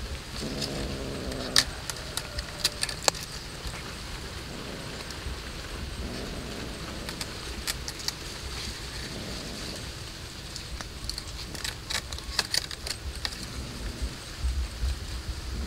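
Cat chewing raw fish: scattered clusters of sharp clicks and crunches from its teeth on flesh and bone, over a steady hiss and a low rumble.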